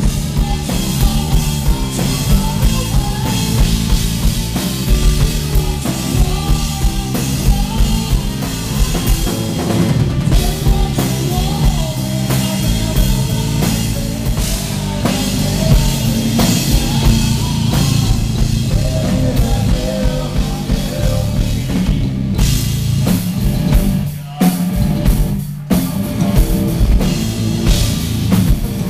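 Heavy metal band playing live: drum kit, bass and electric guitars, loud and dense, with two brief stops in the playing about three-quarters of the way through.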